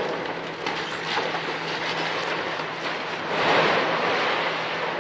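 Stone masonry and rubble crashing and crumbling as an excavator tears down a church wall. It is a dense, crackling rumble of falling debris that swells about three seconds in, over a steady low hum.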